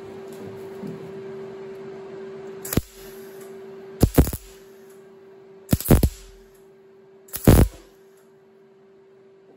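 MIG welder laying four short tack welds on a sheet-metal patch panel, each a brief crackle of the arc, roughly a second and a half apart.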